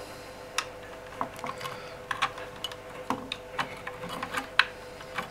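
Irregular small clicks and taps from a soldering iron and a thin metal pick knocking against a radio transmitter's plastic case and circuit board while the aerial lead is unsoldered, over a faint steady hum.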